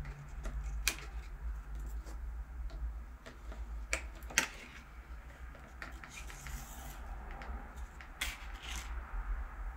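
Hands handling a knife's paper and cardboard packaging: scattered sharp taps and clicks, and a brief scraping rustle about six seconds in as a paper sleeve is slid off a chef knife's blade.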